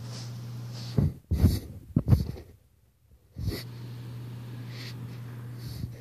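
Muffled low thumps and rubbing close to the microphone over a steady low hum. The sound drops out almost to silence for a moment in the middle, and another thump comes as it returns.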